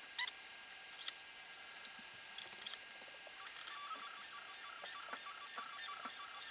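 A few sharp clicks, then from about halfway the Prusa i3 MK3's stepper motors whining in short repeated pulses as the printer steps between probe points during mesh bed levelling.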